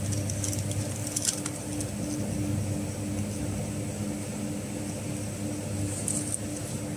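Straw packing machine running with a steady hum and an even pulse about three times a second. A few light metallic clicks come from parts being handled about a second in and again near the end.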